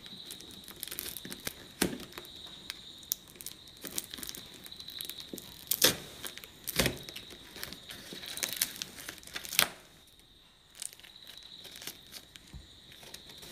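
A plastic-wrapped parcel being torn open by hand: plastic wrap crinkling and ripping and corrugated cardboard packing tearing, in a string of irregular rips. The loudest tears come about six, seven and nine and a half seconds in, with a short lull after that.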